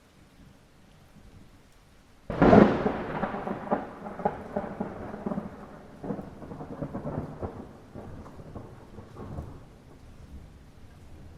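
Thunder in light rain: faint rain hiss, then a sudden sharp thunderclap about two seconds in that breaks into a rumble of repeated cracks, fading over several seconds.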